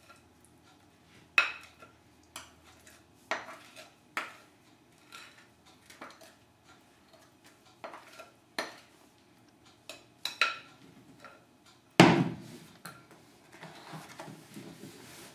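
Utensil clinking and knocking against a glass mixing bowl while thick zucchini bread batter is scraped into a foil loaf pan: a string of separate sharp clinks, with a heavier knock about twelve seconds in, then softer scraping near the end.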